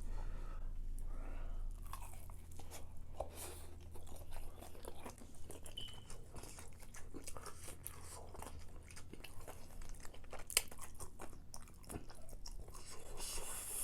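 Close-miked chewing and crunching of food, a run of irregular crisp crackles and wet mouth sounds, over a steady low hum.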